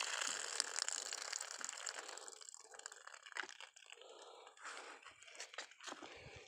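Rainwater pouring from a tipped rubber-tapping latex cup onto the ground, tapering off over the first two seconds. Then scattered crunching of dry fallen leaves underfoot.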